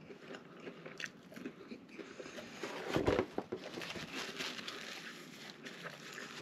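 Close-up chewing and mouth sounds from eating a Double Big Mac, with small wet clicks and crackles throughout and a louder thump about three seconds in; near the end he bites into the burger.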